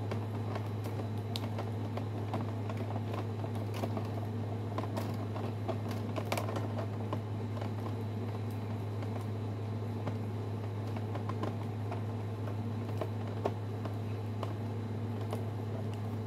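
Small scattered clicks and rustles of toy packaging being handled, plastic and twist ties, over a steady low hum.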